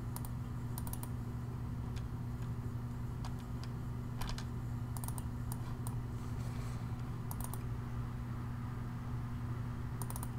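Scattered faint clicks of a computer mouse, several coming in quick pairs like double-clicks, over a steady low hum.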